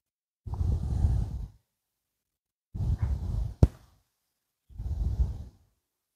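Three breaths heard close to the microphone, each about a second long and a couple of seconds apart, with one sharp click during the second.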